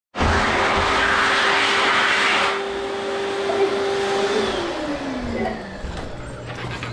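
Electric hand dryer blowing loudly, then shutting off about two and a half seconds in; its motor whine holds steady for a couple of seconds and then falls in pitch as it spins down.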